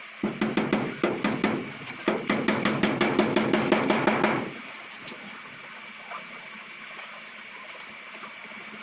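A racing pigeon flapping its wings rapidly in flight, about seven or eight wingbeats a second, in two bouts over some four seconds, then stopping.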